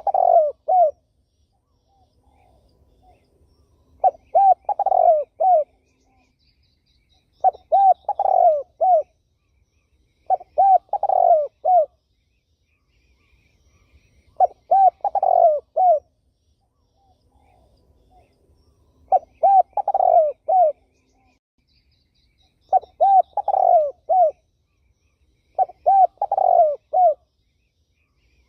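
Spotted dove (terkukur) cooing: about eight phrases of three to five quick, low coos, each phrase about a second and a half long and a few seconds apart, with faint chirps of other small birds in the background.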